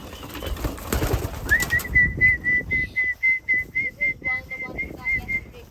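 A person whistling a quick run of short, same-pitched notes, about four or five a second for about four seconds, to call racing pigeons into the loft. A second or so of rustling comes before it.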